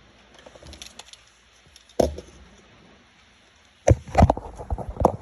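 Hard objects being handled: a single sharp knock about two seconds in, then a quick run of knocks and clatter near the end.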